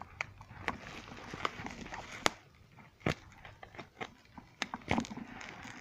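Plastic courier bag and bubble wrap being handled and pulled open: crinkling rustle with irregular sharp crackles and clicks, the sharpest a snap about two seconds in.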